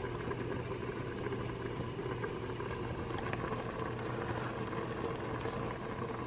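Steady low mechanical hum with a faint even hiss and no distinct events, typical of a kitchen appliance or fan running.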